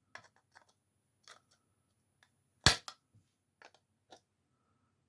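WORKPRO 6.5-inch screw extraction pliers slipping off a screw head, with one sharp snap about two and a half seconds in and faint clicks of the jaws on the screw around it: the jaws grip but will not hold.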